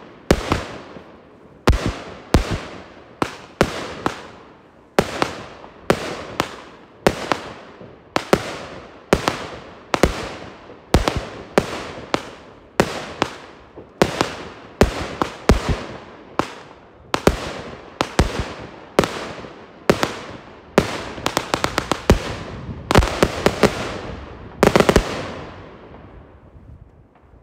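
The 'Tiger' consumer firework fires a long series of aerial shots, with sharp, loud bangs about one to two a second, each trailing off in an echo. About three-quarters of the way through the bangs crowd into a rapid flurry, and the last one comes near the end.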